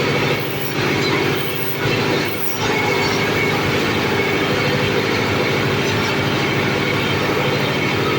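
Four-blade areca nut splitting machine running: a steady mechanical drone with fast, dense clatter, dipping briefly twice in the first few seconds.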